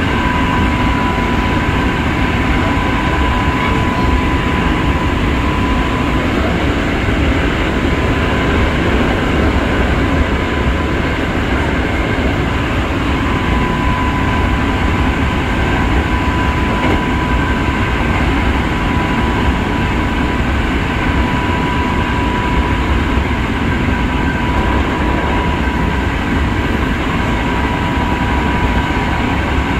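Hankyu 5300 series electric train running steadily at speed, heard from inside the passenger car: a continuous rumble of wheels and running gear with a steady high whine of constant pitch.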